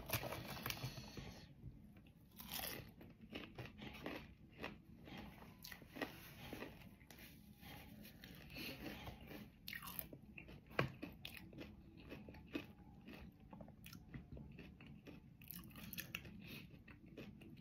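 A person biting and chewing crispy-skinned Jollibee fried chicken, with faint, irregular crunches scattered throughout.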